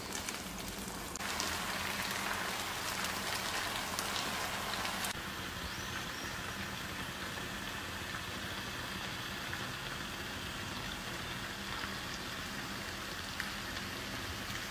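Sauce sizzling in a hot pan of fried shrimp and vegetables: a loud hiss for a few seconds starting about a second in, then a steadier, softer sizzle that cuts off suddenly at the end.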